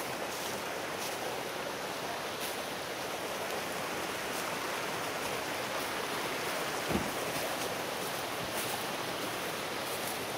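Steady rushing of a rocky creek, with a single low thump about seven seconds in.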